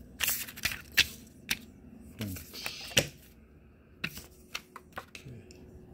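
Packaging being handled on a table: a string of sharp clicks and taps, with a short burst of paper or plastic rustling about two seconds in.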